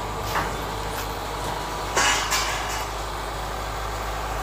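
Kubota DC-105X combine harvester's diesel engine running steadily under load as the machine crawls up loading ramps onto a truck, with a few short knocks, the loudest about two seconds in.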